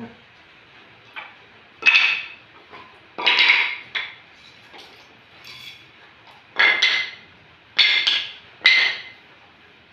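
Cut teak boards for a chair being set down one after another on a ceramic tile floor, giving about five sharp wooden knocks and clacks with gaps between them.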